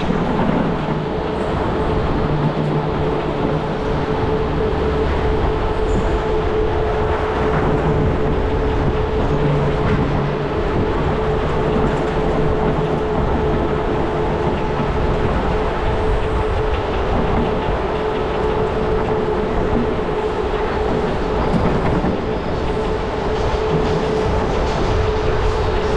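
Go-kart driving around an indoor track, heard from on board: a loud, steady running noise of the kart with a constant hum in it.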